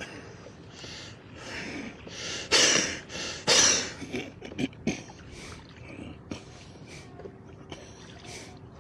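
Oars working the water of a small rowboat: a run of rushing swishes, with two loud ones about two and a half and three and a half seconds in.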